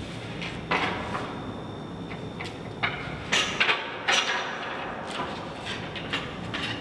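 Large painted cut-out panels being handled and set against a wall: a series of irregular knocks and scrapes, loudest in a cluster about three to four seconds in, over steady background room noise with a faint steady tone.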